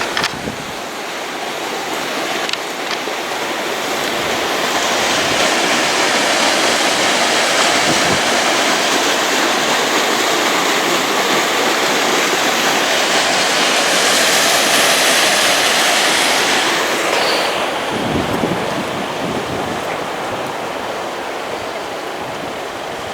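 Fast-flowing river water rushing, a steady loud noise that swells for much of the stretch and then eases off.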